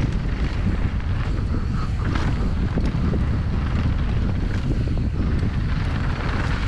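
Wind buffeting the microphone as a downhill mountain bike rides fast down a dirt jump trail. Steady low rumble, with scattered clicks and knocks from the bike and the trail.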